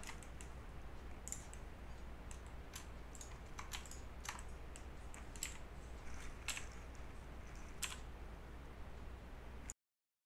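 Scattered computer keyboard keystrokes and clicks, about a dozen sharp taps spread irregularly, over a faint steady low hum. The sound cuts off abruptly near the end.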